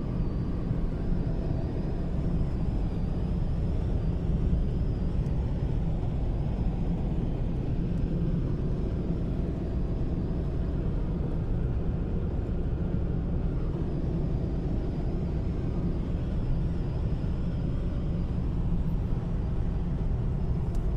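Cabin noise of a Skoda Rapid at 110 km/h, steady road and engine noise, with a thin high whistle from the driver's door that wavers slightly in pitch.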